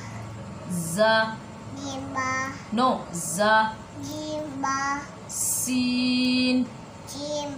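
A young child reciting the Arabic alphabet letter names one at a time in a sing-song chant, about one syllable a second. One syllable is drawn out long a little before six seconds in, just after a hissing consonant.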